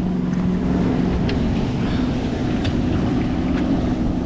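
Steady low rumble of a small boat at sea with wind on the microphone; a low hum fades out about a second in, and a few faint ticks sound over it.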